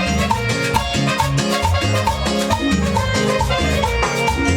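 Live tropical dance band playing an instrumental passage in a Latin dance style: a bass line and percussion on a steady beat, with a short high note repeating several times a second.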